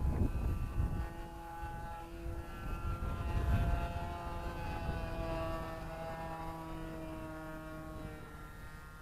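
Thunder Tiger .61 two-stroke glow engine of a radio-controlled model plane in flight, buzzing at high revs with its pitch drifting as the plane moves. It grows fainter over the last few seconds.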